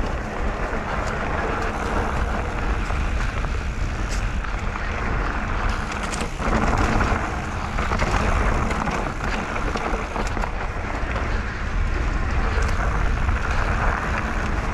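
Mountain bike riding fast down a dirt trail: steady wind rush on the microphone, with tyre noise and the bike's scattered rattles and knocks over bumps.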